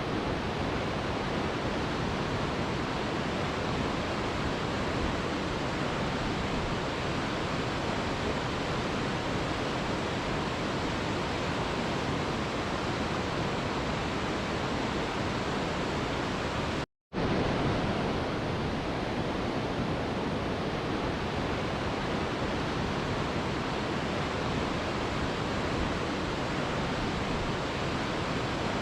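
Waterfall rushing in a steady, even roar of falling water. The sound cuts out completely for a split second a little after halfway through, then resumes unchanged.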